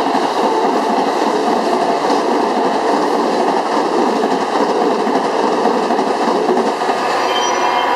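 Amtrak Superliner double-deck passenger cars passing close by, a steady loud rumble and rattle of wheels on the rails.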